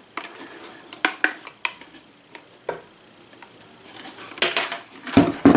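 A furnace draft inducer blower housing handled and turned over on a wooden table: scattered clicks and knocks, with a louder clatter of knocks near the end.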